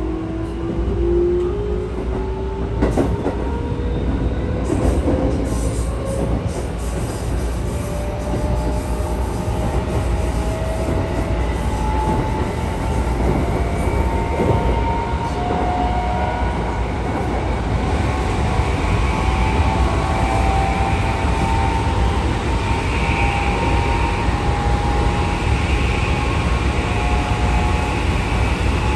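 Keikyu 1000 series electric train's traction motor and inverter whine, rising in pitch as the train accelerates and then holding at speed over a steady rumble, with a few clicks a few seconds in. The motor sound has changed from this set's usual one; the uploader takes it for the kind of motors carried by another formation.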